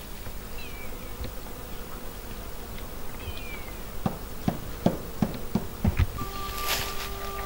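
Faint bird chirps, then a run of sharp clicks and knocks in the middle. Near the end a bee starts buzzing close by, a steady even hum.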